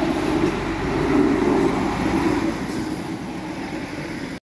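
Small red-and-yellow rail maintenance vehicle with a roof work platform running past at close range: its engine and wheels on the rails rumble, swelling about a second in as it goes by and easing off as it moves away.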